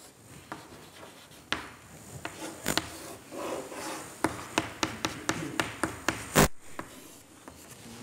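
Chalk on a blackboard: writing and drawing with scratches and a run of sharp taps, thickest in the second half, the loudest tap about six and a half seconds in.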